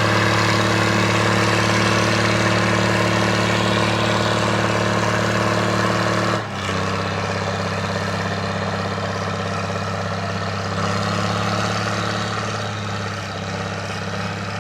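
An engine running steadily at idle-like speed. About six and a half seconds in, the sound shifts abruptly to a slightly lower, quieter hum.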